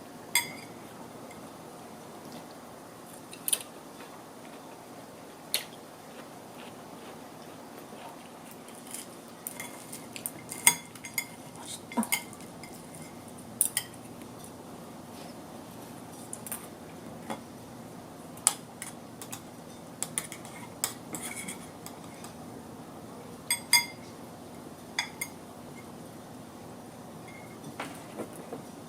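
Cutlery clinking against dishes at irregular intervals during a meal, some of the clinks ringing briefly.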